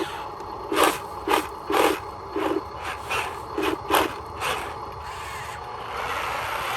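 Small motors and gearing of a remote-control construction toy working in short jabs: brief low buzzes with about eight sharp plastic clacks over four seconds, then a steadier running noise near the end.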